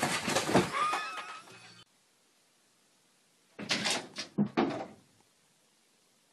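A burst of clatter and thuds with a brief wavering high cry in it. After a dead-silent gap comes a second burst of several sharp knocks and bangs.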